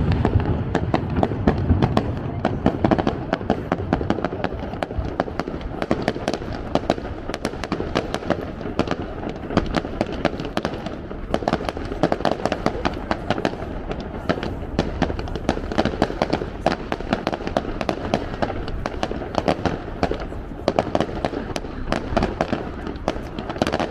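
Fireworks display: a dense, continuous crackling and popping of many small bursts going off close together, with crowd voices beneath.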